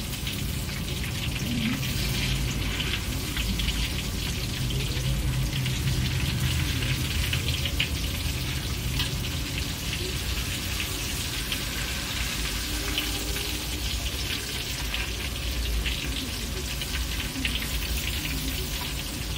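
Tofu-and-egg fritters frying in hot oil in a wok: a steady crackling sizzle of many small pops.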